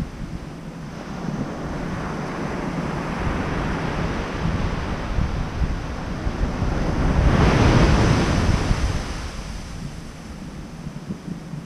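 Ocean surf breaking on a sandy beach: the wash of the waves builds, is loudest about two-thirds of the way through, then fades as the water runs back. Low wind buffeting on the microphone underneath.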